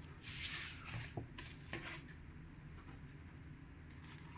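Handling of a vinyl record and its paper jacket: rubbing and rustling for about the first second and a half, with a few light knocks, then only faint room noise.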